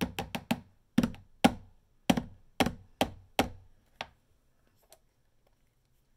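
About ten sharp plastic knocks in uneven groups over four seconds, then stopping: a small food-colouring bottle being banged against the rim of a plastic bowl because the dye won't come out.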